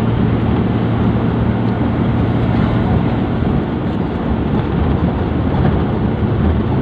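Vehicle interior noise while driving: a steady low engine hum with road and wind noise, heard from inside the cabin.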